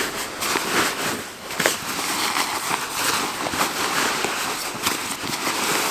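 A jacket being stuffed by hand into its own sleeve: continuous fabric rustling with small crackles.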